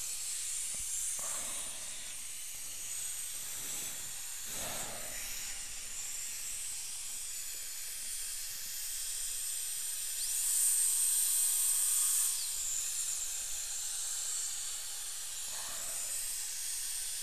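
High-speed dental air-turbine handpiece with water spray, a steady high hiss and whine, cutting with a fine diamond bur through the contact area of an old porcelain-fused-to-metal crown to section it for removal. It gets louder for a couple of seconds about ten seconds in.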